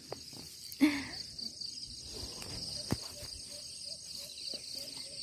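Insects chirring steadily in a high, finely pulsing band. A brief louder sound comes about a second in, and a single sharp tick near the three-second mark.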